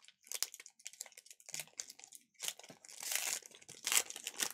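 Foil trading-card pack wrapper being torn open and crinkled by hand: a run of irregular crackles that grows denser and louder in the last second and a half.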